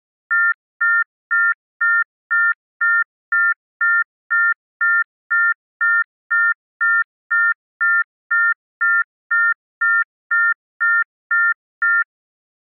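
Telephone howler tone, the off-hook warning that a receiver has been left off the hook: a two-note electronic tone beeping on and off evenly about twice a second, 24 short beeps, stopping near the end.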